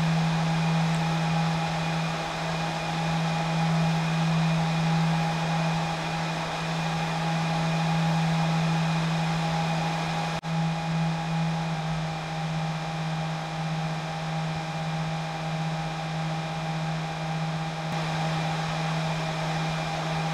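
Dell PowerEdge R730xd server's cooling fans running at high speed during boot: a steady whir with a constant humming whine, broken by a brief dropout about halfway through.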